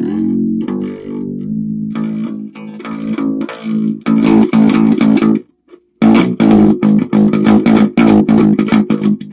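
Electric guitar tuned down very low, played in fast rhythmic strokes on low notes. It stops briefly a little past halfway, then comes back louder.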